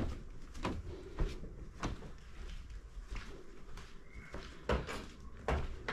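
Footsteps on wooden decking and hardwood flooring: irregular light knocks, about one every half second at first, then a pause, with a brief squeak about four seconds in.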